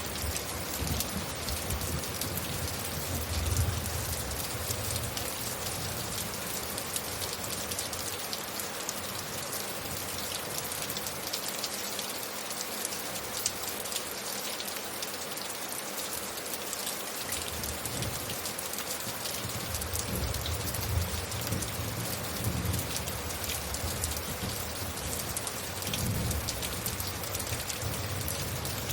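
Steady rain falling: a continuous hiss full of individual drops striking, with a low rumble underneath that fades out for several seconds midway and then returns.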